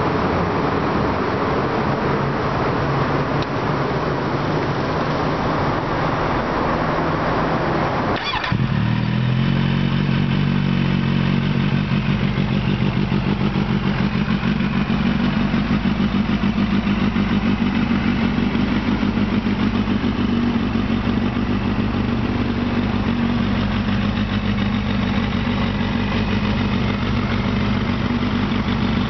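Kawasaki Z800's inline-four engine idling steadily through an Akrapovic carbon-fibre slip-on exhaust. About eight seconds in there is a sharp click, after which the idle sounds lower and fuller.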